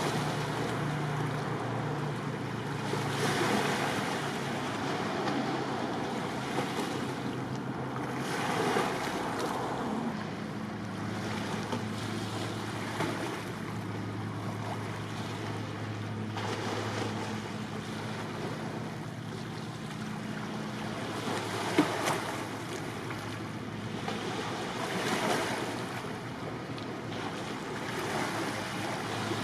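Sea water washing and surging in slow swells, under the steady low hum of a ship's engine, with wind buffeting the microphone. A single sharp click stands out about two-thirds of the way through.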